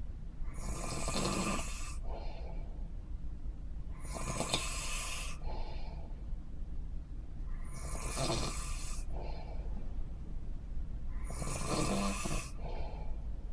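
A person snoring in a steady rhythm: four long snores, each over a second, come about every four seconds, with a fainter breath between them. A steady low hum runs underneath.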